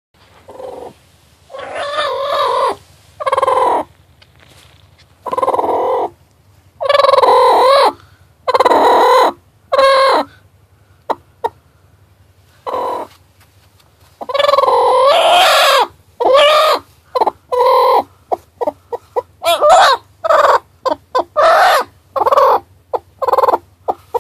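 Broody hen sitting on her egg, giving a run of loud, drawn-out, wavering calls of a second or so each, with one long call midway and quicker short clucks near the end: the angry protest of a broody hen that will not give up her egg.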